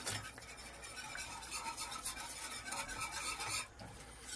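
Small whisk stirring a roux-based sauce of butter, flour and chicken stock in a pot: soft, steady scraping and swishing against the pot, with a brief lull near the end.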